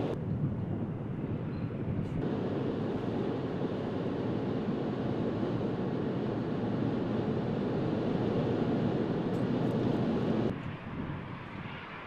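Steady tyre and wind noise of a Volkswagen up! city car driving at about 126 km/h, heard from inside the cabin, with no engine note standing out. About ten seconds in the sound turns quieter and thinner.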